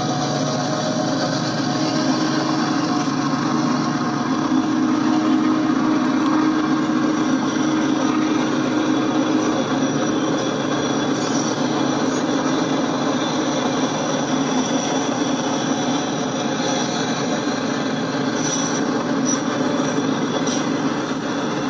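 Double-stack intermodal container cars rolling past on the rails: a steady, continuous noise of steel wheels on track.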